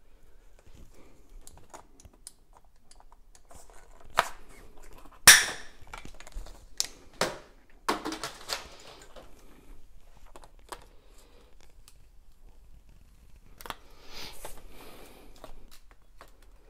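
Scattered clicks, knocks and rustles of a red plastic water pipe being handled and worked into an in-wall box, with one sharp loud click about five seconds in and a short rustly stretch near the end.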